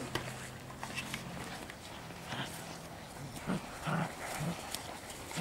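41-day-old Doberman puppies play-fighting, giving a few short low growls about three and a half to four and a half seconds in, amid small scuffling clicks.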